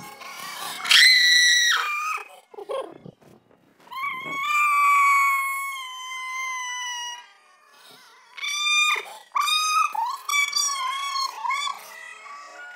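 A human voice pitched up very high by a voice-changer app, coming out as squeals rather than words: a short squeal about a second in, a long wavering held note, then a run of quick choppy syllables near the end.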